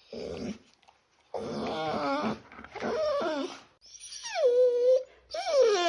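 Small dog whining and whimpering in a run of about five plaintive cries that waver in pitch. The last two are the longest: one slides down and holds, the other rises and falls.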